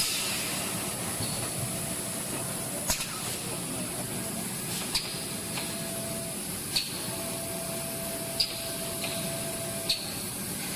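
Non-stop label rewinding machine running: a steady whir and hiss with a faint high whine. A sharp click comes about every one and a half to two seconds.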